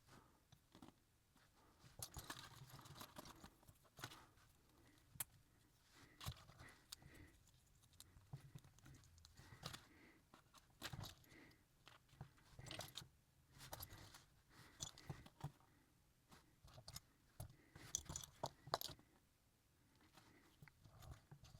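Small plastic model-kit parts being handled and fitted together: faint, irregular clicks and light rustling, with a few sharper snaps.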